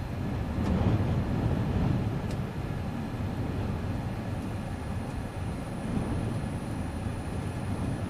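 Wind-storm gusts buffeting a car, heard from inside the cabin as a steady low rush that swells about a second in. A couple of faint ticks sound over it.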